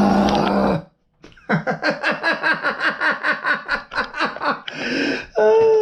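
A water spray hisses for under a second and cuts off. After a short gap a man laughs in quick bursts for about three seconds, ending with a short breath and a voiced "oh".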